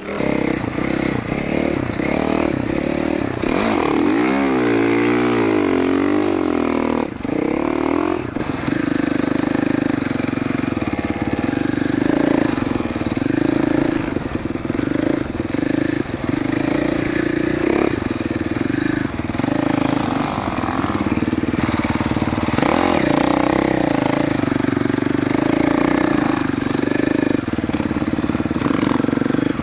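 2021 GasGas MC450F single-cylinder four-stroke dirt bike engine running under throttle through soft sand. Its pitch rises and falls several times about four seconds in, then it holds a steady note.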